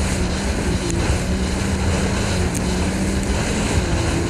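Jet ski engine running at steady high speed, a constant drone, with water spray hissing off the hull and wind rushing over a head-mounted microphone.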